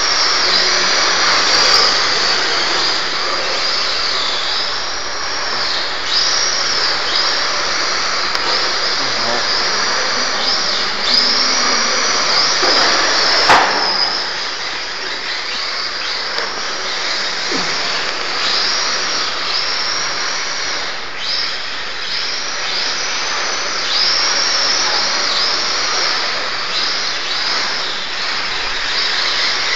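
Electric motors of radio-controlled drift cars whining up and down over and over as the throttle is worked, over the hiss of tyres sliding on a concrete floor. A single sharp knock about halfway through.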